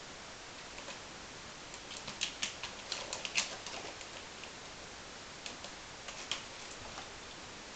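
A cat's claws scratching and scrabbling at a sisal-rope scratching post: clusters of sharp, quick scratches, busiest about two to four seconds in, with a few more scattered later.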